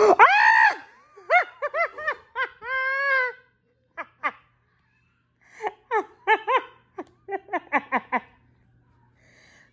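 A six-month-old baby's excited squeals: a loud rising-and-falling squeal at the start, short squeals and one held note, then after a pause a quick laugh-like run of short squeals.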